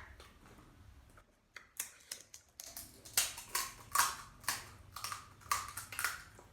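Crisp food being chewed close to the microphone: a run of sharp, irregular crunches, roughly two a second, starting about a second and a half in.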